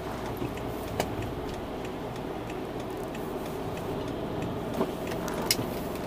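Steady road and engine noise inside the cabin of a 2008 BMW 650i with its N62 V8 at a light cruise. A light ticking and a few faint clicks sound over it.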